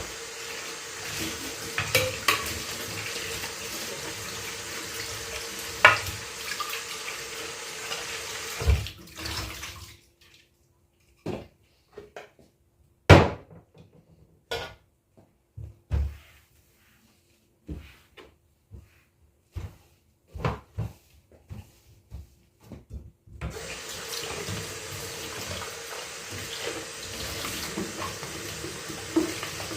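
Tap water running into a sink with dishes clinking as they are washed. About ten seconds in the water is shut off, leaving scattered clinks and knocks of dishes for some thirteen seconds, then the tap runs again.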